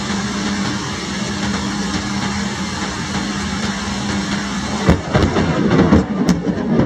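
Heavy rain falling steadily with a low steady hum beneath it. About five seconds in, a louder, uneven rumble of thunder breaks in, with sharp crackles.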